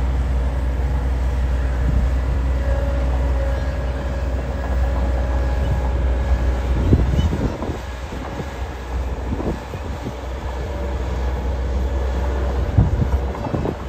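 Tracked excavator's diesel engine working under load as the machine climbs a steep soil heap: a steady engine drone that eases off about halfway through as it nears the top, with a few clanks from the tracks afterwards.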